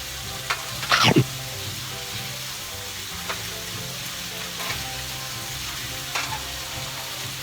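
Pork belly sizzling steadily on a hot tabletop grill pan, with a louder scraping clatter about a second in and a few light clicks of utensils after it.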